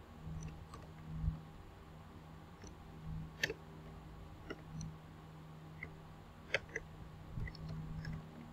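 Computer keyboard being typed on: about a dozen short, irregularly spaced key clicks over a faint low hum.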